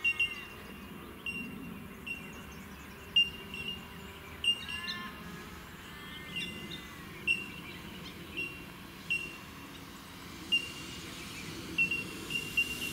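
Birds calling: short high chirps repeated unevenly at one pitch, with a few sliding calls between them.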